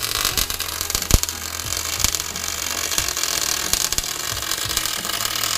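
Arc welding on steel: the welding arc crackling and hissing steadily while a tack weld is laid to fix the anti-roll bar mount in place, with one sharp crack about a second in.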